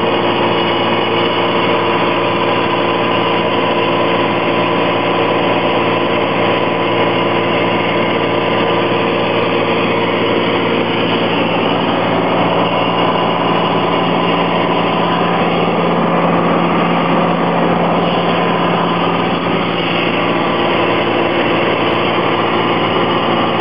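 Cessna 182S's six-cylinder Lycoming piston engine and propeller running steadily in flight, heard from inside the cabin as an even drone.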